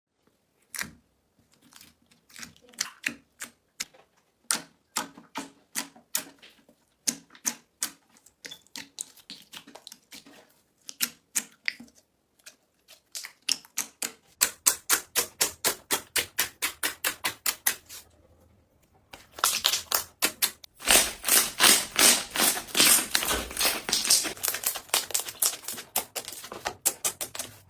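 Slime being pressed and poked by hand, making sharp clicking pops of trapped air. The clicks are scattered at first, become a fast even run of several a second about halfway through, and grow denser and louder near the end.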